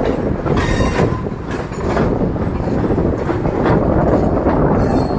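Mumbai suburban electric local train running on the track, heard from its open doorway: a steady, loud rumble of wheels on rails with a clickety-clack over the joints. A brief high hiss comes about a second in.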